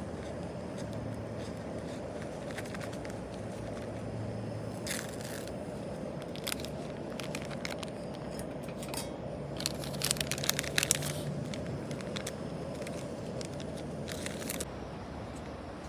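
Scattered clicks and crackles over a steady rushing background, with a louder burst of clicks about ten seconds in.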